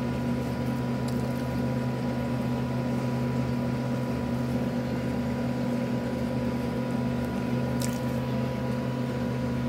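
Steady electrical hum of a running appliance, with a single faint click about eight seconds in.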